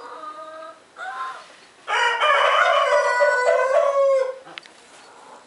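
Two short calls from a fowl, then a loud, long crowing call of about two seconds that ends on a drawn-out falling note.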